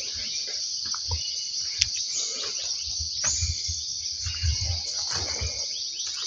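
Steady high-pitched chorus of insects, with irregular low thuds and a few clicks from footsteps through the undergrowth.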